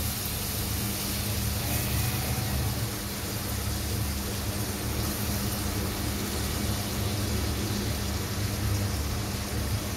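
Beef steaks frying in melted margarine in a small pan on a gas burner, a steady sizzle over a constant low rumble and hum.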